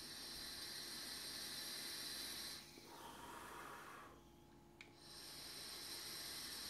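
Faint breathing of a vaper drawing on a Horizontech Krixus ceramic-coil sub-ohm tank, with a soft exhale of vapour starting a little over two and a half seconds in.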